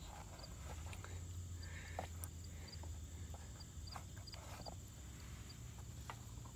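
Faint trickle of hot engine oil draining from the generator's drain hose into a plastic drain pan, with a few light knocks as the hose is handled. Faint, short, high chirps recur in the background.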